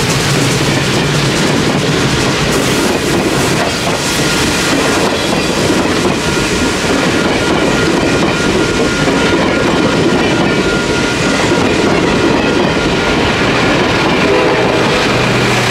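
Passenger train of steel heavyweight coaches rolling past close by: a steady rumble with wheels clicking over the rail joints. Near the end a locomotive horn starts to sound.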